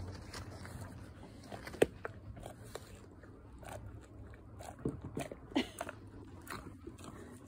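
Golden retriever eating a soft dog cupcake in big bites: irregular chewing and biting clicks, with a sharp one about two seconds in and a cluster of bites around five seconds in.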